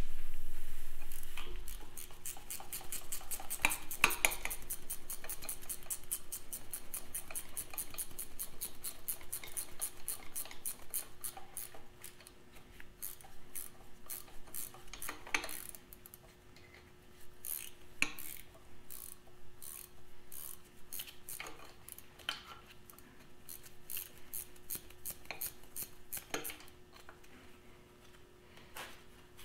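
Ratchet wrench clicking rapidly as bolts are worked loose on a tractor engine block, giving way after about twelve seconds to scattered metallic clicks and clinks of tools and bolts. A faint steady hum runs underneath.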